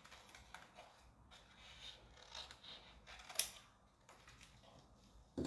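Scissors snipping through a paper transfer sheet in short, faint cuts, with light paper rustling. A sharp click about three and a half seconds in, and a louder knock at the very end.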